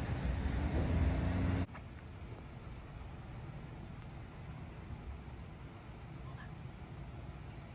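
Outdoor traffic noise with a low vehicle engine hum, which cuts off abruptly about a second and a half in. After that comes a quieter, steady outdoor background hiss.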